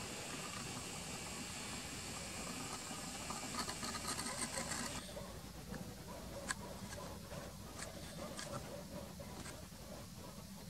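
Nikon camera's zoom lens motor whirring faintly through its built-in microphone as the lens zooms in; it stops about five seconds in. A few light clicks follow.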